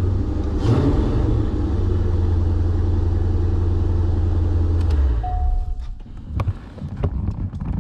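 1998 C5 Corvette's LS1 V8 idling, briefly blipped about a second in as the newly fitted gas pedal is tested. The engine is shut off a little after five seconds in, followed by a short steady tone and a few clicks and knocks.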